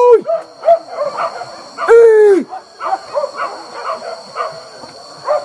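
Hunting dogs yelping in quick, repeated cries, with a long drawn-out howl about two seconds in: dogs giving tongue as they chase a wild boar.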